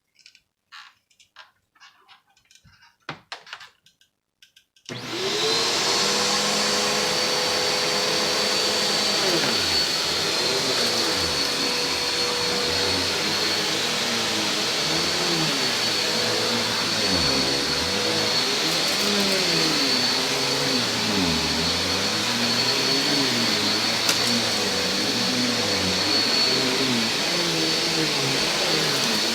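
A few faint clicks and knocks, then about five seconds in a Koblenz Endurance U-800 upright vacuum cleaner switches on and runs steadily with a high whine. Beneath it a lower hum keeps rising and falling in pitch as the vacuum works over carpet.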